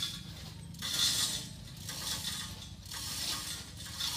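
Mechanical rasping and rattling in short bursts roughly once a second, over a steady low hum.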